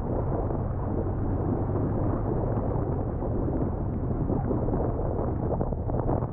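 Wind rushing and buffeting over the microphone of a camera on a moving motorcycle, with the low running of the BMW R1200R's boxer-twin engine underneath; the buffeting gets gustier and crackles near the end.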